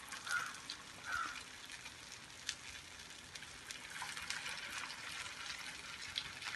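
Faint sizzle and crackle of hot oil as finger-shaped potato semolina cutlets are laid one by one into a shallow-frying pan, with scattered small pops.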